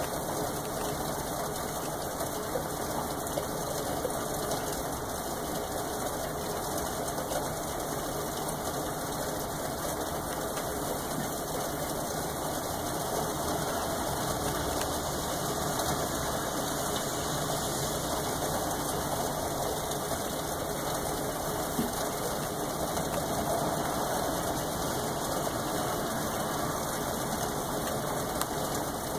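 Steady rain falling, an even continuous hiss with no thunder.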